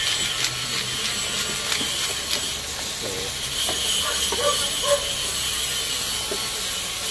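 Tomatoes, onion, garlic and ginger frying in oil in a pan, a steady sizzle while the tomatoes cook down, with scattered light clicks and ticks.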